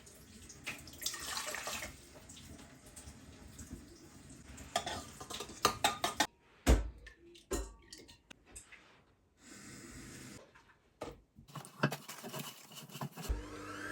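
Kitchen sounds of bread dough ingredients being prepared: liquid pouring and utensils clinking and knocking against a bowl, in several short clips that cut off abruptly.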